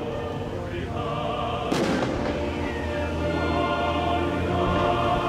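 A firework shell bursting once, about one and a half seconds in, with a trailing rumble, over music playing throughout.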